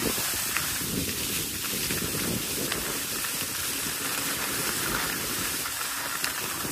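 Skis gliding over packed snow: a steady sliding hiss, with a low fluttering rumble underneath.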